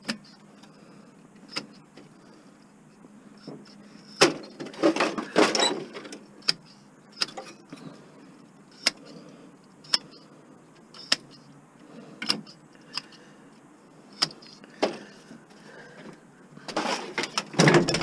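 Scattered clicks and knocks of a screwdriver and of metal and plastic parts being handled in the electronics chassis of an old rear-projection TV, with a burst of clattering about four seconds in and a louder clatter near the end as the chassis is pulled out.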